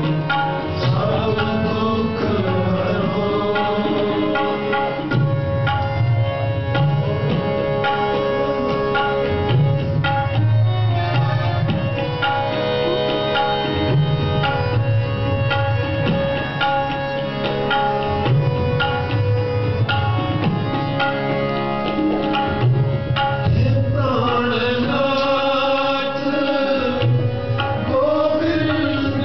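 Sikh kirtan: a harmonium sounding steady held chords, accompanied by tabla, with a man singing at times, most clearly near the start and again from about three quarters of the way through.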